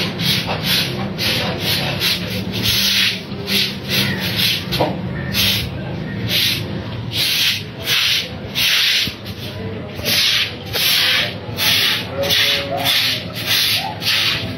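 A hand brush scrubbing a wet concrete floor in short, regular back-and-forth strokes, about two a second.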